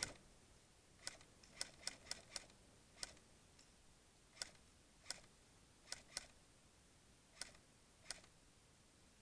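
Airsoft guns firing single shots: about a dozen sharp, faint pops at uneven intervals, some in quick pairs.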